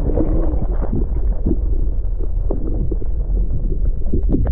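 Muffled underwater rumble of water washing against a submerged camera, with irregular knocks and thumps, all dull and low.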